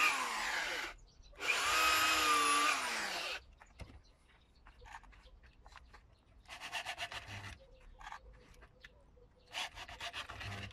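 Handheld electric drill boring into a wooden frame. The motor whine runs twice in the first three seconds, each run rising and falling in pitch. Later come two shorter, quieter bursts of drilling, with small knocks between them.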